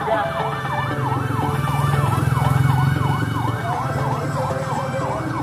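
A siren in a fast yelp, its pitch sweeping up and down about three times a second without a break. Under it a car engine runs low and swells as a Suzuki SUV passes close, loudest about two to three seconds in.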